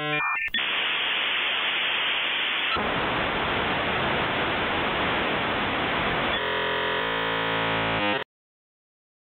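Loud electronic static hiss that coarsens about three seconds in, then turns into a harsh buzzing tone for a couple of seconds before cutting off suddenly to silence.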